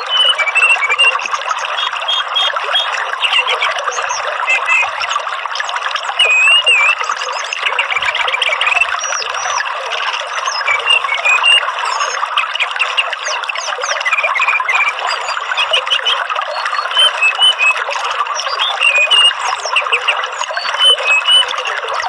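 Songbird recording, played as a lure for orange-headed thrushes: many quick whistles, chirps and short warbled glides over a dense, continuous chattering hiss.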